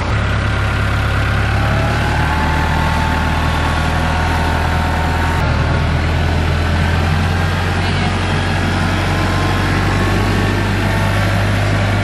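TYM T474 HST compact tractor's diesel engine running steadily with a low, even drone while the tractor is driven.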